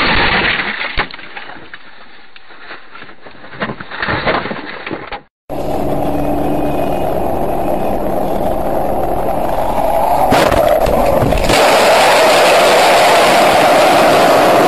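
Car on the move, steady road and engine noise. The sound breaks off briefly about five seconds in and comes back louder and steady, with two sharp knocks about ten and eleven seconds in.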